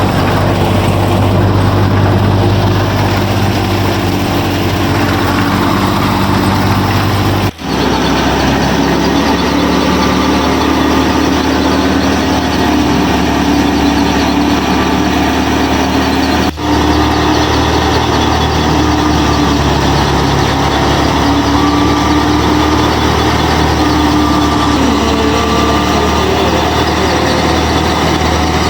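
Loud, steady engine-like running with a low hum and a wavering higher tone, broken by two abrupt cuts, one about a quarter of the way in and one a little past halfway.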